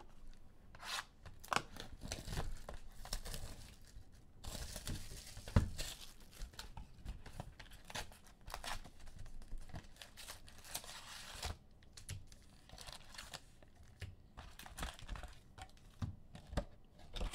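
A football trading-card pack being torn open by hand, its wrapper tearing and crinkling, with many quick clicks and rustles as the cards are handled and two longer stretches of tearing.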